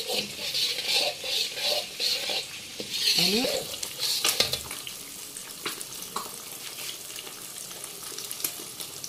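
Perforated steel spatula stirring and scraping melted, caramelized sugar and ghee in a steel pan over a sizzle, in strokes about twice a second. After about four seconds the strokes stop and a quieter sizzle with occasional clicks remains.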